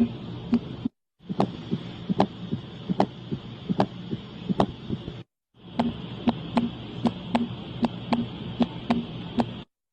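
Normal human heart sounds: a regular lub-dub heartbeat at about 75 beats a minute, over a steady hiss. The sound drops out briefly twice, about a second in and again around five seconds in.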